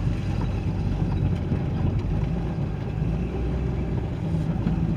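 2001 Jeep Cherokee engine running steadily while driving slowly. It is the engine the owner calls a supposed rod knock, which went partly quieter after the flex plate bolts were tightened.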